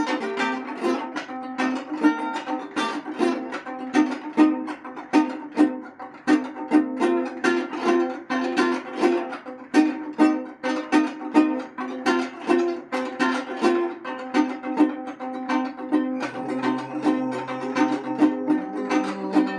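A plucked string instrument played solo: a steady stream of picked notes, a few a second, each ringing on. Lower notes come in near the end.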